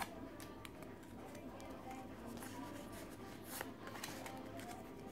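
Pokémon trading cards being handled and slid against one another as a freshly opened pack is sorted: a few soft flicks and brushing sounds, the clearest about three and a half seconds in.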